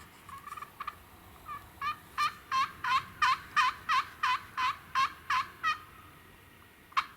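A series of about a dozen turkey yelps, roughly three a second, growing louder and then fading toward the end, with one more short note about a second later.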